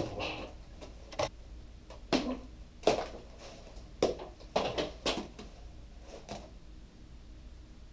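Scattered short knocks and clatters, about seven in all over the first six seconds, from aluminium pie tins being picked up and set down and shoes stepping on a cream-smeared floor.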